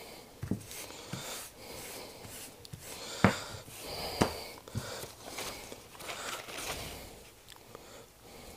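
Brown kraft paper rustling as hands press and pat it flat over dyed polycarbonate lure lips to blot them dry, with a few soft thumps of hands on the table, the loudest two a little after three and four seconds in.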